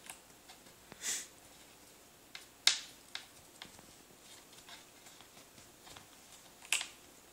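Kitten clawing and biting at a laptop power cord: scattered light scratches and clicks, the sharpest about two and a half seconds in and again near the end.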